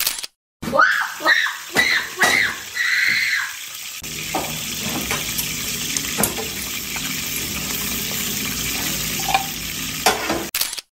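A few short high-pitched chirps, then food sizzling steadily in a frying pan on a stove for several seconds before cutting off near the end.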